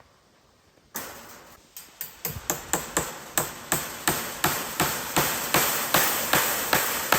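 Hammer striking repeatedly, likely driving fencing staples to fix cattle-panel fencing onto the sifter's wooden frame. It starts about a second in and settles into a steady rhythm of about three blows a second, each with a short ring.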